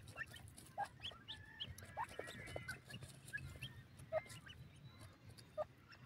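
Young grey francolins giving short, faint, falling peeps every half second or so, with a small cluster of calls about two seconds in. Light clicking and scratching comes from them pecking and digging in dry soil.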